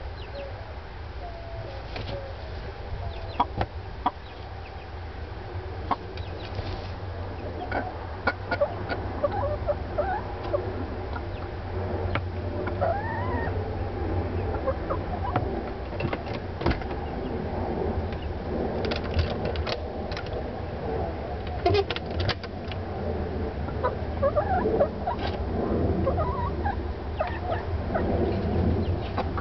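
Hens in a nest box clucking and making low murmuring calls on and off, with occasional short knocks.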